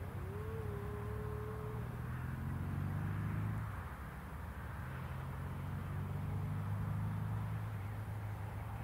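A low, steady engine drone that dips briefly about four seconds in, with a faint higher tone that rises and holds near the start.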